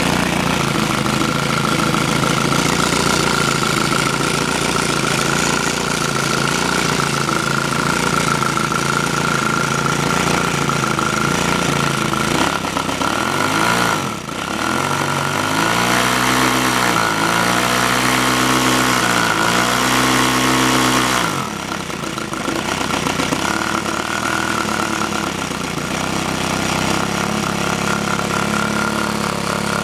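A 65 cc three-cylinder model five-stroke engine running, its centre cylinder working on the exhaust gas of the two outer ones. It runs steadily, then about halfway through its speed rises and falls several times as the throttle is worked by hand, before settling back to a steady run.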